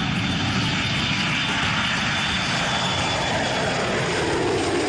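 Airplane engine sound effect: steady, even engine noise with no change in pitch or loudness.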